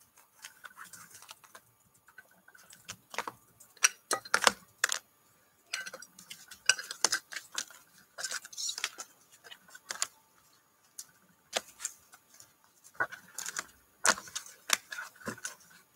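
Rigid plastic trading-card holders clicking and clattering against each other and against clear acrylic display stands as they are lifted off and stacked by hand, in irregular sharp taps.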